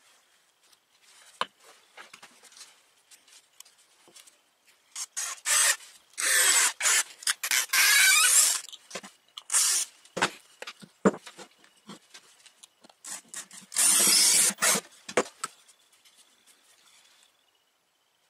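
Pine being filed by hand: a few short scraping strokes, then a long stretch of scraping, and another a few seconds later, with light clicks and knocks of tools and wood in between.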